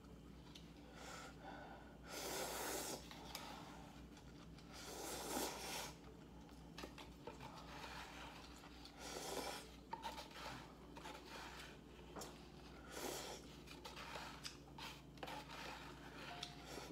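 Instant noodles being slurped: four breathy slurps a few seconds apart, with faint small clicks between them.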